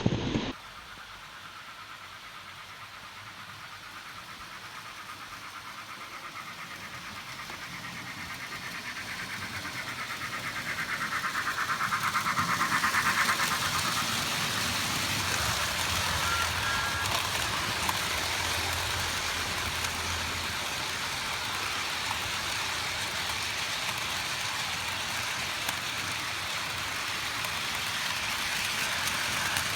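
Motorized toy train engines running on plastic track, a steady whirring and rattling that grows louder to its peak about 13 seconds in and then carries on steadily.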